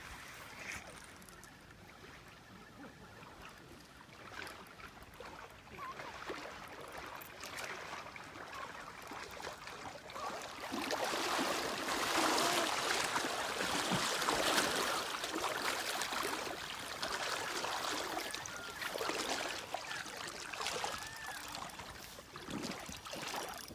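Shallow river water splashing and sloshing around a wader-clad angler's legs as he wades, a crackly hiss that starts about a third of the way in and keeps going. Before that, only faint lapping of the river.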